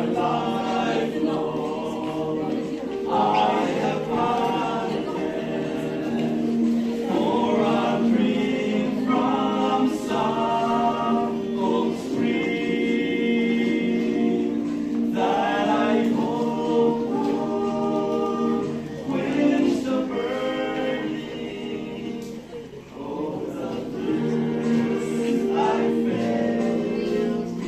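Music: a group of voices singing together over held chords.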